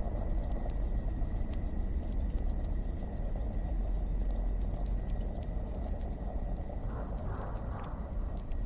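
Crackling fire ambience: a steady low rumble with scattered sharp crackles, over a steady high chirring like crickets.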